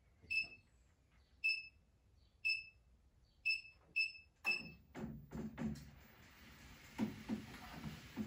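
York Fitness treadmill console beeping: six short high beeps as its buttons are pressed. About halfway through, the belt starts running with a steady motor hiss, and the soft thuds of feet walking on the treadmill deck follow.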